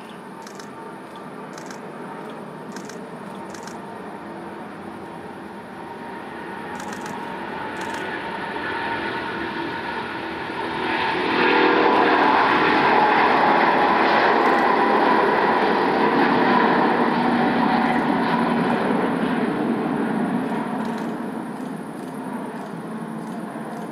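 Airbus A350-900's twin Rolls-Royce Trent XWB turbofans at takeoff thrust during the takeoff roll. The jet roar builds as the aircraft accelerates toward the microphone, swells sharply about halfway through as it passes, then fades near the end as it moves away.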